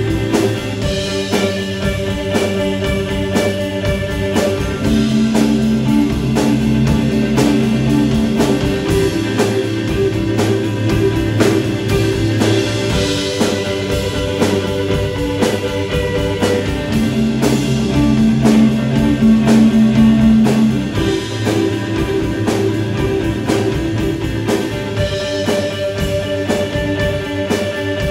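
Rock band playing an instrumental passage: two electric guitars holding long ringing notes over a baritone bass, with a steady drum-kit beat.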